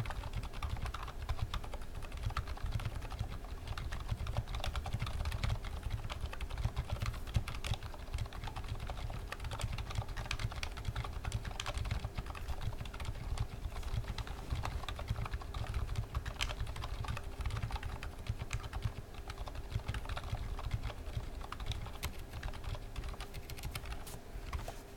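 Continuous fast typing on a GMMK TKL mechanical keyboard fitted with TTC silent red switch housings and Aliaz silent tactile stems lubed with Tribosys 3204: a dense, steady stream of muted keystrokes.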